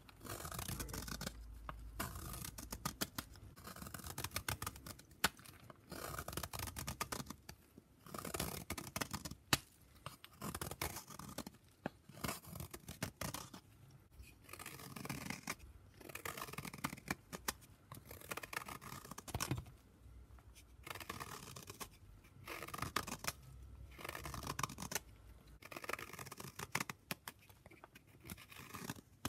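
Block of gym chalk being shaved and crumbled close up, dry crackly scraping and crunching in repeated strokes of a second or two with short pauses between.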